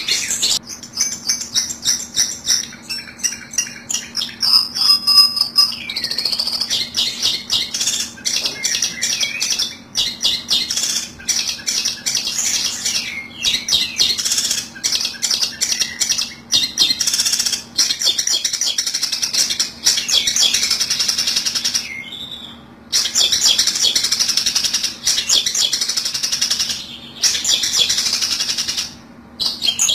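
Long-tailed shrike (cendet) calls used as a trapping lure: dense, rapid harsh chattering and chirps with a couple of brief pauses, over a low steady hum.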